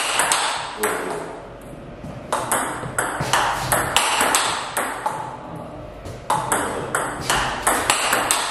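Table tennis rally: a celluloid ball clicking off the bats and bouncing on the table several times a second, with two short pauses, about a second in and about five seconds in. One bat is a TIBHAR Jorgić blade of five wood plies and two Dyneema layers.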